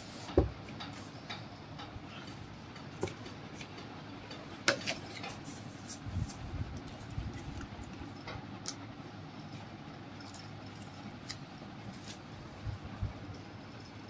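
Handling sounds while a cardboard gift box is unboxed: scattered knocks and clicks from the box, its lid and the items lifted from the foam insert. The loudest come about half a second in and near five seconds, over steady low background noise.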